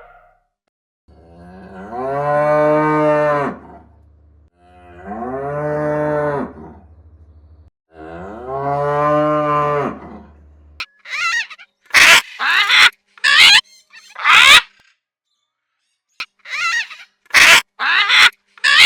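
A cow mooing three times, each moo long and low. Then, from a little over halfway through, a rapid run of short, loud, sharp calls from another animal.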